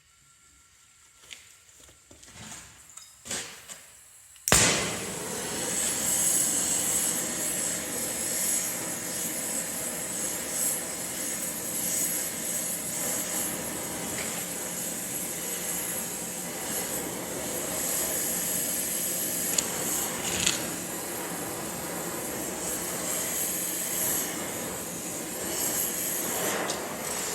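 A forge comes on suddenly, about four seconds in, after a few light clicks. It then runs with a loud, steady rushing roar to heat a steel rivet blank, and fades near the end.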